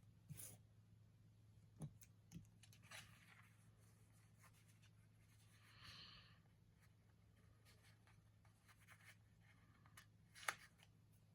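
Faint paper and sticker handling on a planner page: scattered soft taps and a brief rustle, with one sharper tap near the end, over a low steady hum.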